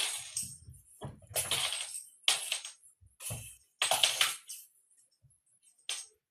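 A jingling, rattling cat toy being batted about in a string of short irregular bursts, about six in all, with a longer pause near the end.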